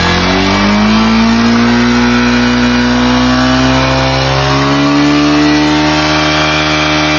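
Small Yamaha single-cylinder motorcycle engine revved up and held at a steady raised speed, creeping slightly higher, while its charging voltage is checked at the battery; the bike is suspected of not charging.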